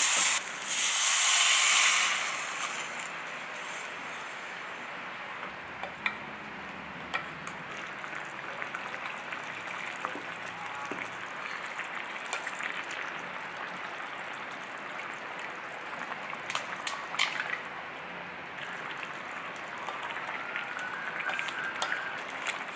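Chili paste sizzling loudly as it fries in a small pot, stopping about two seconds in. After that a quieter steady hiss of the stew over the gas burner, with scattered light knocks of a wooden spoon against the pot as it is stirred.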